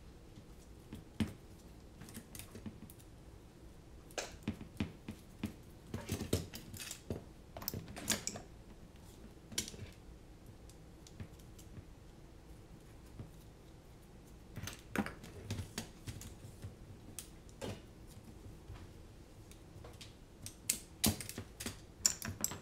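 Irregular small clicks and taps of a carbon-fibre quadcopter frame, its arms and screws being handled and fitted by hand, with a quicker run of louder clicks near the end.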